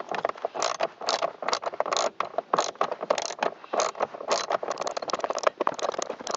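Hand ratchet with a socket clicking and scraping in irregular short runs as it backs out the screws holding a car's blower motor.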